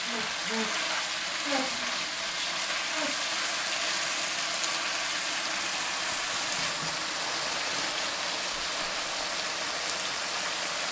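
Green bean curry sizzling steadily in a pan as its coconut-milk gravy cooks down to a thick, dry prattal consistency.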